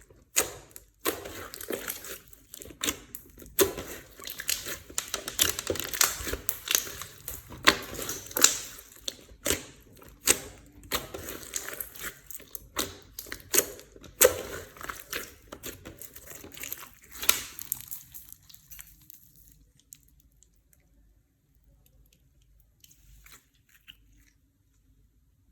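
Clear slime with mixed-in items being kneaded and squeezed by hand, giving dense irregular pops, crackles and sticky clicks. It stops about eighteen seconds in, leaving only a few faint ticks.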